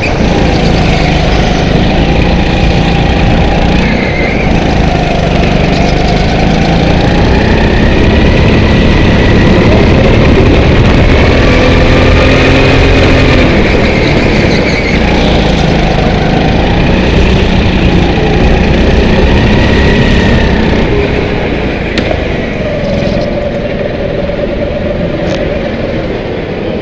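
Go-kart engine heard from on board, its pitch rising and falling as the kart accelerates and brakes through corners. It gets quieter about three-quarters of the way through.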